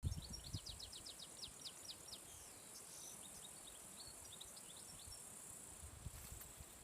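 Faint outdoor birdsong: a small bird sings a quick run of falling chirps, then a looser series of chirps. Under it runs a steady high insect hiss, with a little low rumble of wind at the start and near the end.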